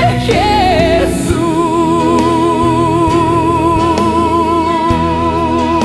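Gospel-style worship song: a solo voice holds one long note with vibrato over steady keyboard-like accompaniment and a regular beat.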